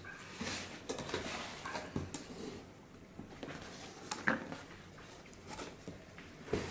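The box and packaging of a car stereo head unit being handled and opened: irregular light knocks and clicks with soft rustling, the sharpest click about four seconds in and another near the end.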